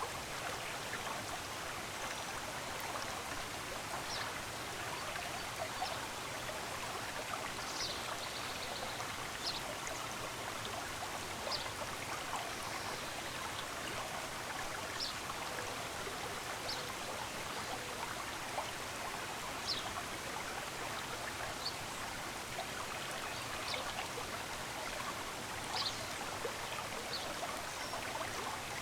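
Running water of a stream flowing steadily, with brief high bird chirps every second or two.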